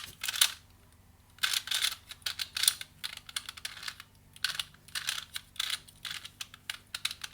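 2x2 pocket Rubik's cube being turned by hand: a quick run of plastic clicks and clacks as the layers are twisted through a move sequence, with a brief pause about a second in.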